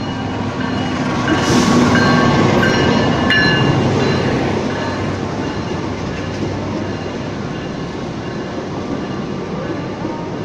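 CC206 diesel-electric locomotive passing close by, loudest about two seconds in. It is followed by the steady rumble of its passenger coaches rolling past.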